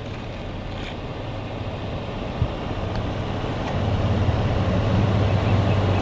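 A low, steady engine hum, growing gradually louder: a motor vehicle running.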